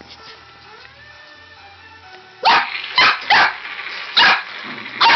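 Border collie puppy barking: about five sharp barks in quick succession, starting about halfway through, after a quieter stretch.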